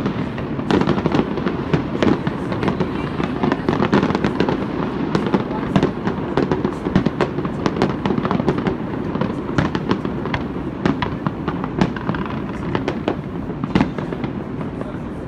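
Aerial fireworks display: a dense, continuous barrage of bangs and crackles from many shells bursting close together, thinning out and getting quieter near the end.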